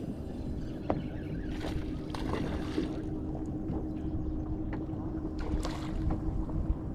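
Water lapping against a bass boat's hull, with wind on the microphone and a steady hum, from the bow-mount electric trolling motor holding the boat in place. A single sharp click sounds about a second in.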